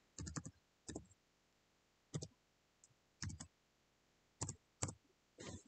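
Computer keyboard keys being tapped: about eight faint, separate clicks with pauses between them.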